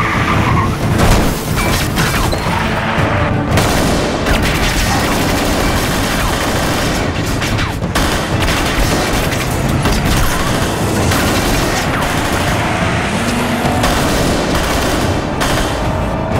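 Rapid gunfire and booming blasts over a driving music score: the mixed soundtrack of a TV action sequence.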